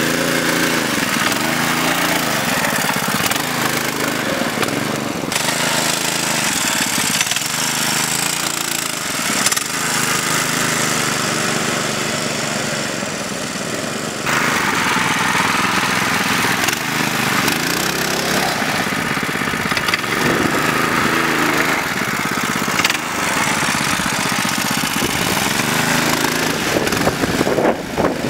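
Mini bike engines running and revving up and down repeatedly as the bikes are ridden.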